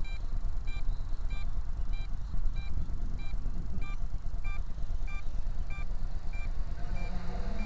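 Short electronic beeps repeating evenly about every two-thirds of a second over a steady low rumble.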